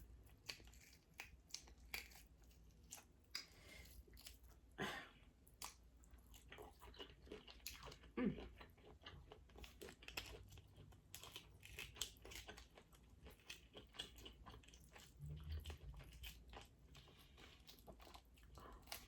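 Faint clicks and crunches of a cooked lobster tail's shell being pried and peeled open by hand, close to the microphone, scattered irregularly with a few louder cracks.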